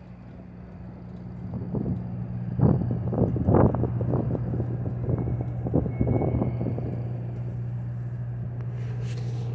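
Road traffic: a steady low engine hum, with louder, uneven engine and tyre noise from about two and a half seconds in as vehicles pass.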